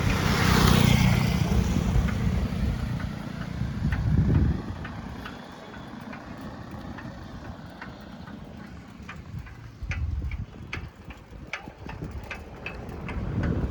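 Street traffic: a motor vehicle running close by for the first four seconds or so, then a quieter background of traffic and wind with scattered sharp clicks.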